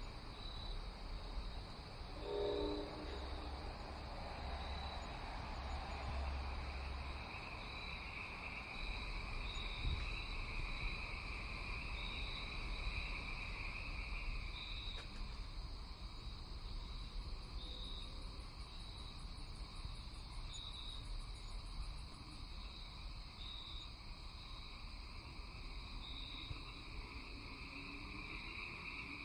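Night-time insect chorus: a steady high buzz with a short chirp repeating a little more than once a second, over a low rumble. A brief low pitched call sounds about two seconds in.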